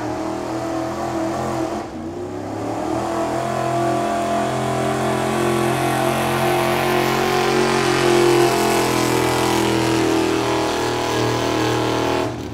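Street-modified pickup truck engine at full throttle, pulling a weight-transfer sled in a truck pull. It dips briefly about two seconds in, climbs and holds loud, then drops away sharply near the end.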